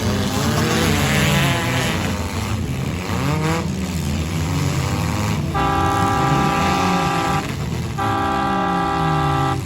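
Four-cylinder demolition derby car engines running and revving, their pitch rising and falling. A horn sounds in two long, steady blasts in the second half.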